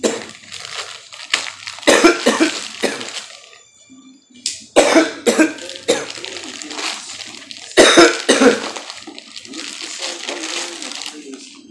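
A man coughing hard in several loud bursts, over the rustling and crinkling of a plastic bag being cut open and its wrapping crumpled and pulled apart.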